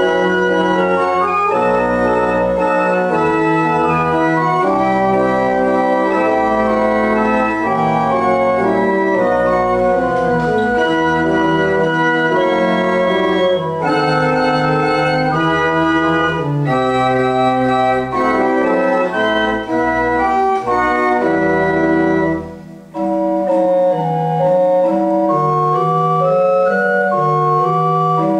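Pipe organ playing a minuet solo, with sustained chords and a moving melody. There is a brief break about 23 seconds in before the next phrase.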